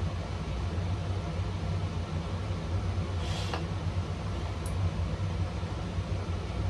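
Steady low background hum, even and unchanging, with a brief rustle about three seconds in and a faint click a second later.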